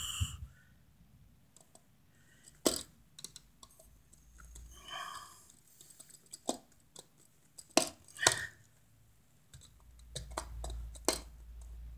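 Sparse sharp clicks of a screwdriver and pliers on the metal terminal screws of a duplex receptacle as the black wire's loop is closed and screwed down, about five separate clicks with low handling rumble near the end.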